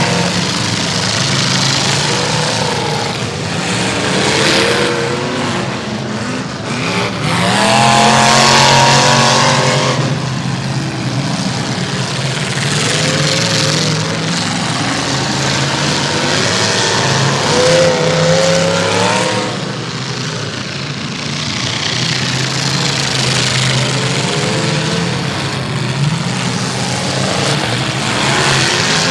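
Several big-car class demolition derby cars racing around a figure-eight track, their engines revving up and down as they accelerate and pass. The loudest pass comes about eight seconds in.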